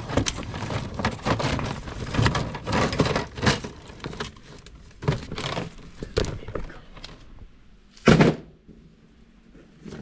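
Irregular clattering and knocking of objects being moved and handled in a cluttered workshop, with one heavy thud about eight seconds in.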